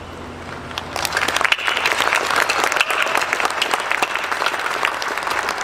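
Large audience clapping, breaking out about a second in into a steady patter of many hands.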